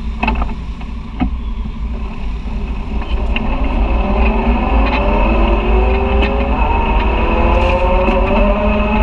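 Side-by-side UTV engine pulling away and gathering speed, its pitch climbing steadily from about three seconds in, over a constant low rumble. A couple of knocks from the bumpy trail come in the first second or so.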